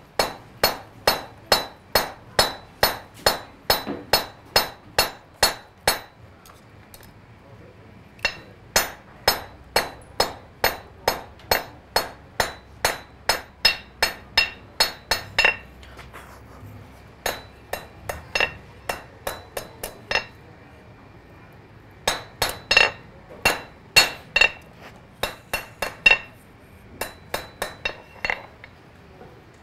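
Blacksmith's hand hammer striking a glowing iron bar on an anvil, a steady run of blows about two to three a second, each with a bright metallic ring. The hammering comes in several runs with short pauses between them as the hot iron is drawn out and shaped.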